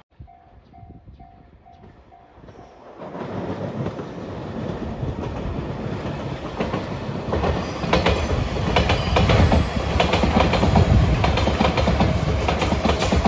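A level-crossing warning bell rings in even pulses at first. Then the JR Shikoku 8000 series electric limited express train approaches and passes close by, its wheels clattering over the rail joints. The train comes in about three seconds in and grows louder as it draws level.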